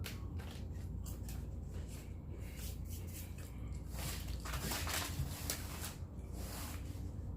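Close-up eating sounds: chewing with many small clicks and smacks of the mouth, and two short bursts of rustling, about four seconds in and again near the end, over a steady low hum.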